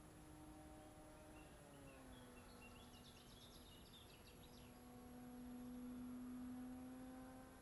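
Faint, steady hum of an E-flite Beaver 25e model plane's electric motor and 13x6.5 propeller flying high overhead. Its pitch drops slightly about two seconds in, and it swells louder near the end. Faint bird chirps come a couple of seconds in.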